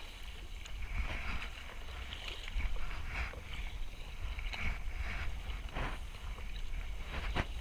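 Sea water rushing and splashing along a sail-rigged kayak's hull under way, with wind buffeting the microphone in a low rumble. A few sharper splashes stand out, one about three seconds in and two near the end.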